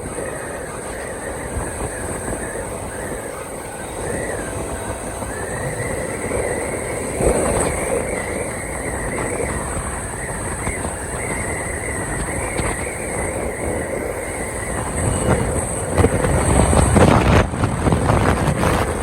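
A vehicle running and moving over rough ground, with a steady rumble, a wavering high squeal through the middle and a few knocks and jolts, heaviest near the end.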